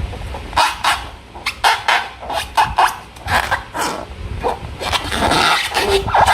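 Slime being squeezed and worked by hand: irregular wet squelches and sticky clicks, several a second, with a longer run of squishing about five seconds in.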